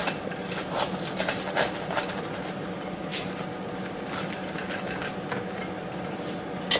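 Table knife scraping over the crusty cut face of a multi-seed bun, spreading margarine in a series of short rasping strokes, then a sharp knock near the end.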